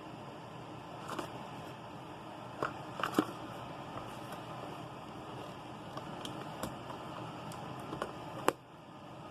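Scattered light clicks and crackles of packaging being handled during an unboxing, over a steady hiss of background noise.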